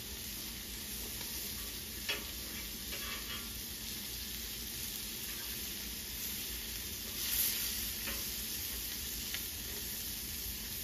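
Pike strips sizzling in butter on a hot flat-top griddle, a steady frying hiss. A few light clicks of a fork on the steel come about two to three seconds in, and a brief louder flare of sizzle comes about seven seconds in.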